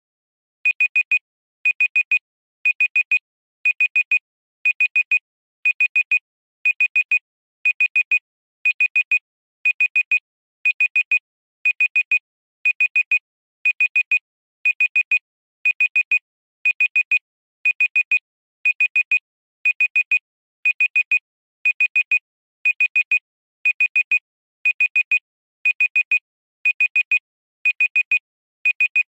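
Digital countdown timer alarm going off at zero: a high electronic beep in quick groups of four, repeating about once a second. It starts about half a second in.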